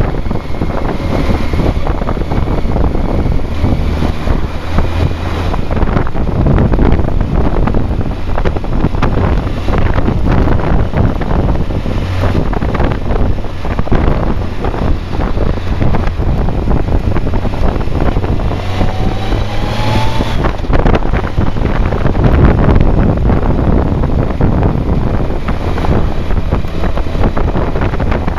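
Riding on a BMW K1200R Sport motorcycle: wind rushing over the camera microphone, with the bike's inline-four engine running underneath as a low drone. About twenty seconds in, the engine note rises briefly.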